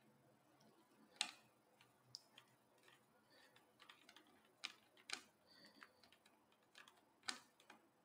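Small precision screwdriver driving the tiny retaining screw into an NVMe SSD on a laptop motherboard: faint, irregular ticks and clicks of the metal tip in the screw head, a few louder among many quieter ones.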